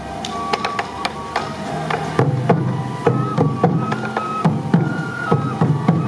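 Sansa odori festival music: a bamboo transverse flute plays a melody in held, stepping notes over a steady beat of taiko drum strikes. The drumming grows fuller about two seconds in.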